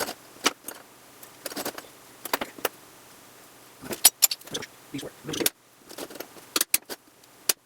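Irregular clicks, taps and clinks of small metal tools and a piece of 3/4 by 1/8 flat bar stock being handled and set down on a workbench, with a cluster of louder knocks about four seconds in and again near the end.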